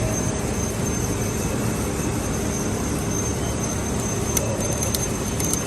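A 3D printing filament extrusion line running steadily, with a constant high whine over the machinery noise and a few light clicks near the end.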